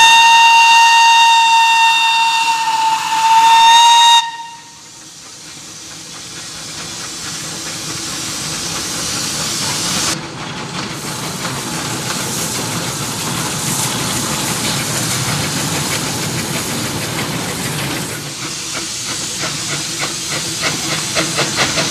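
The whistle of the Lancashire & Yorkshire Railway 'Pug' 0-4-0 saddle tank locomotive gives one long, high blast of about four seconds, rising slightly in pitch just before it stops. Then comes the steady hiss of the working engine hauling its short train of wagons, growing louder as it approaches, with a quick regular beat near the end as it passes close.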